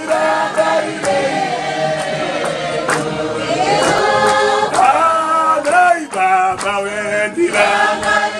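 Church congregation singing together in chorus, several voices holding and shifting pitch as one hymn.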